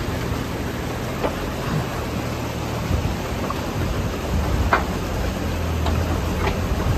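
Water rushing through a beaver dam, with the diesel engine of a Bobcat E35 mini excavator running steadily underneath. A few short sharp snaps or knocks cut through, the loudest about two-thirds of the way in.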